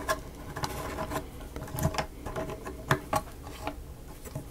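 Irregular light clicks and taps of small miniature-kit pieces being handled and pushed together by hand, as a tight-fitting part is worked into place.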